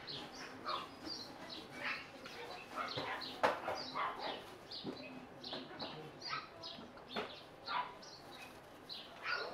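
Repeated short, high chirps and squeaks from small animals in a pet shop, several a second, with a single sharp knock about three and a half seconds in.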